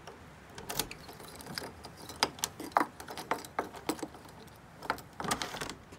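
A bunch of keys jangling and a key clicking and rattling in a door lock as it is unlocked: an irregular scatter of short, sharp clicks.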